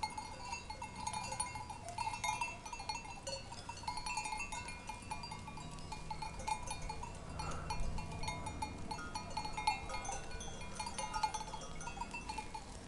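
Bells on a grazing flock of goats and sheep, clanking and tinkling irregularly as the animals move.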